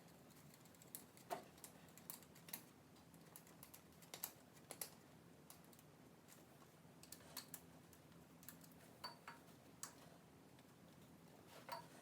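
Faint, irregular small clicks and ticks from hand work fitting hose clamps onto a half-inch hose.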